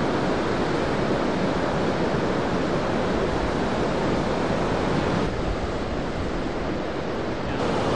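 Ocean surf breaking and washing in a steady, even rush, with some wind on the microphone. The hiss dulls slightly from about five seconds in.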